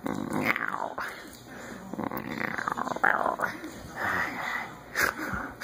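A dog grumbling and growling in short, irregular spells as its muzzle is handled.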